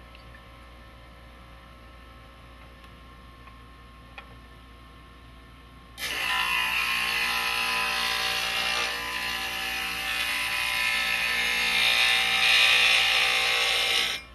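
Diamond Max glass grinder's diamond bit grinding the edge of a piece of stained glass held in the bevel block attachment: a loud, steady, gritty grinding noise that starts suddenly about six seconds in and cuts off at the end. Before it there is only a quiet steady hum with a few faint clicks.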